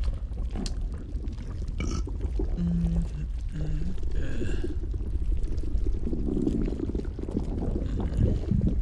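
Stomach gurgling and churning over a steady deep rumble, with short squeaky gurgles now and then.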